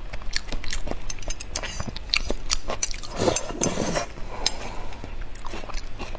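Close-miked chewing of soft pork brain: a rapid run of wet mouth clicks and lip smacks.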